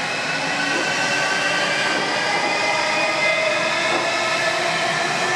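Coupled Rhein-Ruhr-Express Siemens Desiro HC electric multiple units running past at speed: a steady rolling noise of wheels on rail, with several electric tones on top that shift slightly in pitch.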